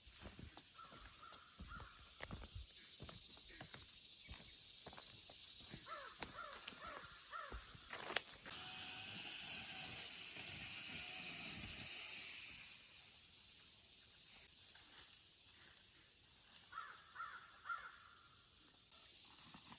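Crows cawing in short runs of calls a few times, with low knocks from handling the camera and a click about eight seconds in. A rushing noise swells for about four seconds in the middle.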